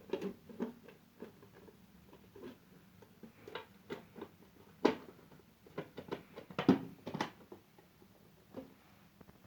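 Irregular clicks and knocks of the plastic housing and parts of a Sinbo sandwich toaster being handled and fitted back together, with two louder knocks about five and seven seconds in.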